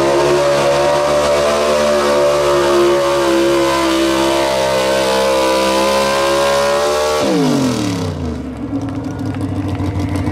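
Truck-pull pickup's engine held at high revs under full load while dragging the weight-transfer sled. About seven seconds in, the revs fall away quickly as the driver lets off at the end of the pull, and the engine settles into a lower rumble.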